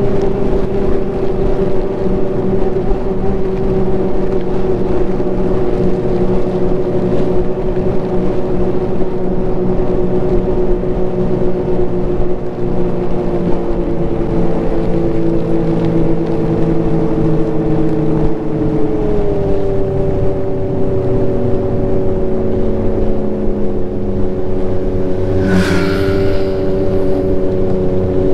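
Ski-Doo Renegade Enduro's 900 ACE Turbo three-cylinder four-stroke engine running steadily as the snowmobile cruises along the trail, its pitch easing slightly lower partway through and shifting a little before settling. A brief rush of hiss sounds near the end.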